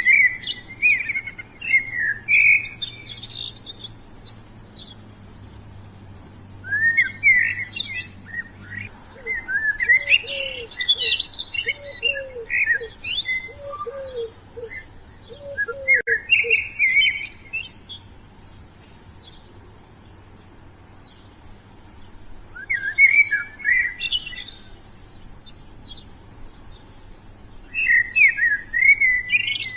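Songbirds singing in bursts of quick, high chirping phrases, several times with short pauses between. A faint run of about eight short low notes sounds through the middle.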